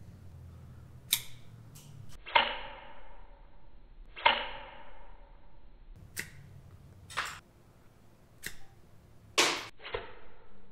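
A mini 3D-printed rubber-band crossbow being loaded and shot: a series of sharp clicks and snaps. Two loud impacts about two seconds apart each ring briefly, darts striking a door.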